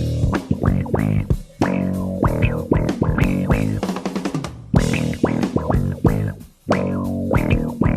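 Electric bass guitar playing a quick funk solo of short, percussive plucked notes with a quacky, duck-like tone. Each note's brightness sweeps up and back down, the sound of an envelope filter (auto-wah), with brief breaks about a second and a half in and again near the end.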